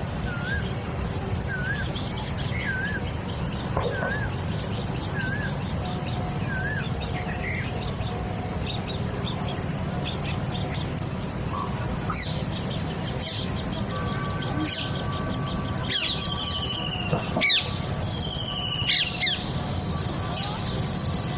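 Birds calling: a short wavy call repeated about every half second for the first third, then sharper chirps and falling whistled notes toward the end. Under them run a steady high-pitched hiss and a low steady rumble.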